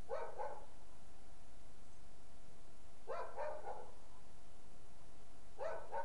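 An animal calling three times, about every three seconds, each call a quick run of a few rough notes.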